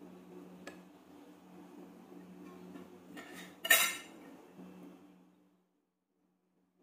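A metal utensil clinks sharply once against a plate about halfway through, with a fainter click about a second in and some rustling just before the clink. Under it runs a steady low hum that stops about five seconds in.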